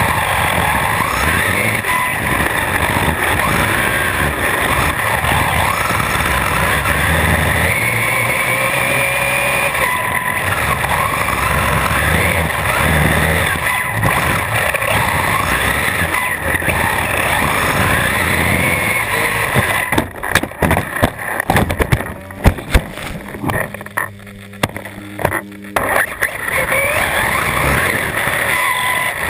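Onboard sound of an electric RC truck driving: the brushless motor's whine rising and falling with the throttle over drivetrain and tyre noise. About two-thirds through, the steady run breaks into a series of sharp knocks and thumps before the motor noise picks up again.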